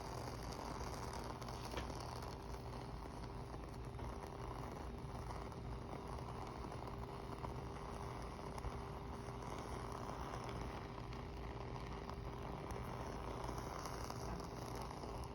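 Burning candle crackling faintly, with a few soft sharp pops over a steady hiss and a low hum.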